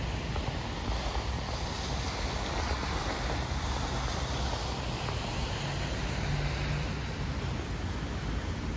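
Steady rush of a pond fountain's vertical water jet splashing back into the pond, over a low rumble of wind on the microphone.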